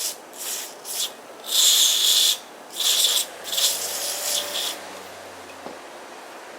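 Aerosol lubricant (KURE Marine) sprayed in about six short bursts of hiss, the longest near the middle, into the outboard's shift-lever housing as it is lubricated.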